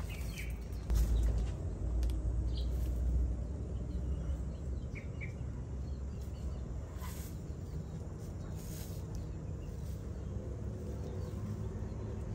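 Outdoor ambience with a few faint, short bird chirps over a steady low background. A low rumble swells about a second in and fades by about three and a half seconds, and two brief rustles come near the middle.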